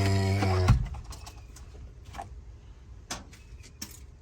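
A man draws out the word "and" for under a second, then a few faint clicks and taps of door-panel parts being handled as he takes them out.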